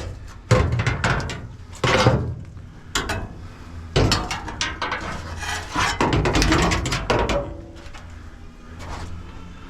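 Scrap metal being handled and stacked into a truck: a series of sharp knocks and clanks about a second apart over a low steady rumble.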